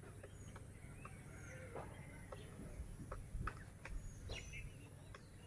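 Great slaty woodpecker chiselling a nest hole into a shirish tree branch: a few sharp, irregularly spaced knocks of its bill on the wood, while small birds chirp faintly.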